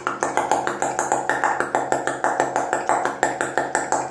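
A man's mouth imitating rapid gunfire: a steady string of short, clipped pops, about six or seven a second.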